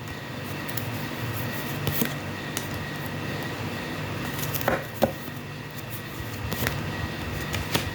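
Tarot cards being handled and laid out on a table: a few soft taps and rustles over a steady low hum of room noise.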